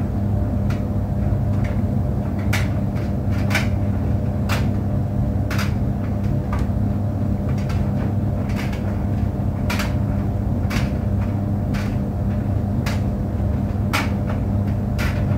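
Clothes tumble dryer running: a steady low hum from the motor and turning drum, with irregular sharp knocks, about one a second, as the tumbling laundry strikes the drum.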